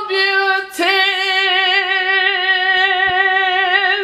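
A woman singing unaccompanied: a long held note that breaks off briefly just under a second in, then a second long held note with a wavering vibrato.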